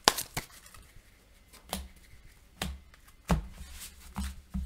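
Sleeved game cards being handled and set down on a cloth playmat: a series of sharp taps and soft thumps, about six over a few seconds.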